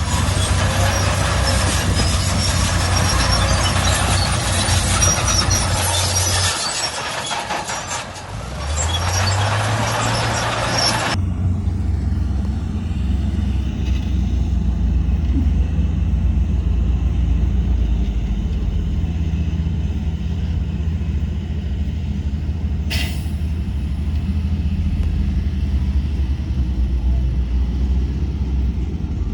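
Heavy diesel engines of earthmoving machinery running. A loud hiss sits over them for the first eleven seconds and cuts off suddenly. The engine note drops away briefly around seven seconds, then revs back up.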